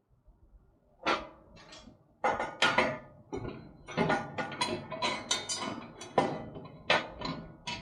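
Parts of a motorcycle wheel chock being handled and fitted together: a run of sharp knocks and clatter starting about a second in, several each second, the last ones near the end.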